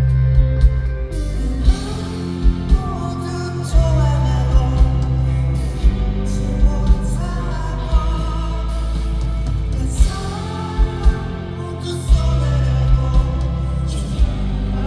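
Live indie rock band performance: a lead vocal sings over a loud bass line and drum kit, with guitars, the kick and snare hits sounding regularly throughout.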